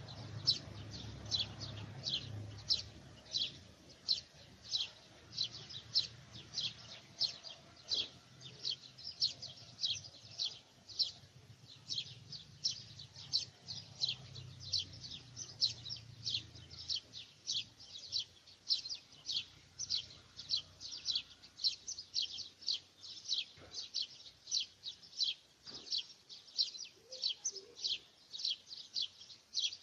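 A small bird chirping over and over, about two short, high, downward-sweeping chirps a second.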